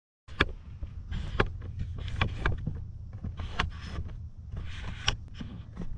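Wind rumbling on an outdoor microphone, with a series of sharp clicks and knocks, about six standing out, starting about a third of a second in.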